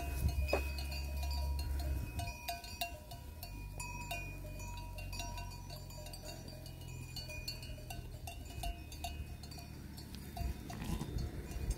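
Many sheep bells on a large flock clinking and ringing at several different pitches, irregularly and overlapping, with a low rumble underneath at times.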